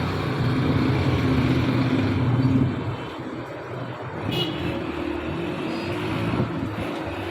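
A motor vehicle engine running close by, louder for the first two and a half seconds and then easing off, with traffic behind it. A single sharp metallic click comes about four seconds in.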